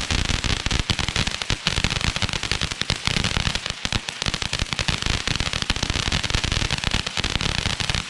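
Fireworks going off in a dense, rapid crackle of many overlapping pops each second.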